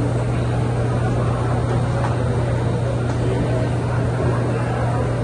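Steady low mechanical hum from pizza-kitchen equipment, unchanging throughout, with a faint background murmur above it.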